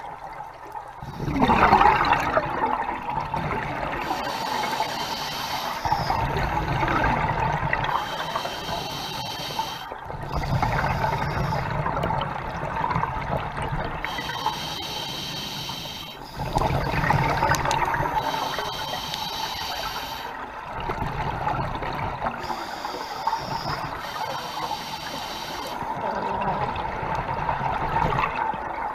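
Scuba diver breathing through an open-circuit regulator underwater: a hissing inhale alternates with the gurgle of exhaled bubbles, a breath about every five seconds.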